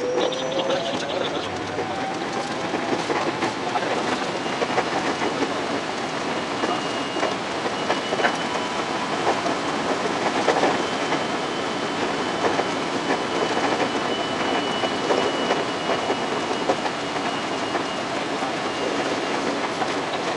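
521-series electric train running on the track. A rising traction-motor whine fades out in the first second or so as it accelerates, then steady rolling noise with wheels clicking over rail joints.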